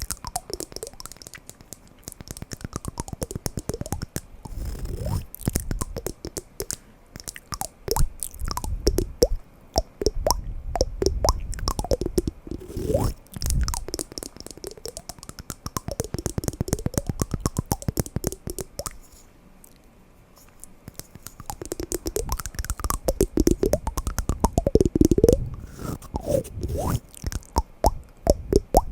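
Wooden blocks knocked and tapped together in fast, dense runs of clicks, with a brief lull about two-thirds of the way through.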